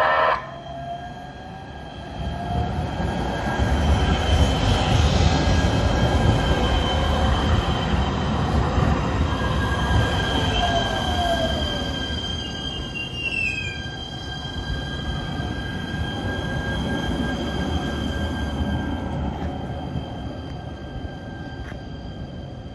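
A Kinkisharyo P3010 light rail train on LA Metro track passing close by: rumble of wheels on rail and running gear that builds about two seconds in, is loudest for several seconds as the cars go past, then slowly fades. High steady wheel squeal sounds through the middle stretch, with a short falling squeal about halfway. A loud horn blast cuts off in the first half second.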